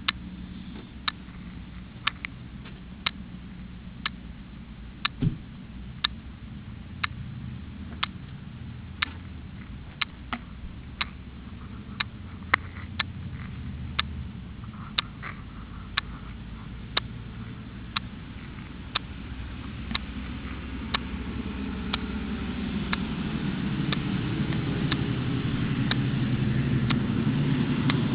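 A motor vehicle engine running, its low rumble growing steadily louder over the last third. A sharp tick sounds about once a second throughout.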